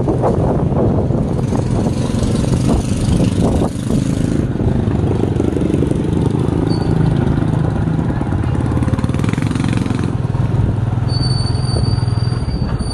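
A small engine running steadily close by, a continuous low rumble with fine even pulsing, and a thin high whine for about two seconds near the end.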